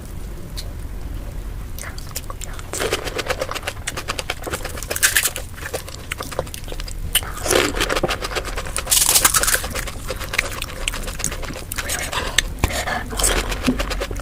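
Close-miked eating of pani puri: the crisp puri shells crunching and being chewed in quick runs of sharp crackles, with a few louder bites, over a low steady hum.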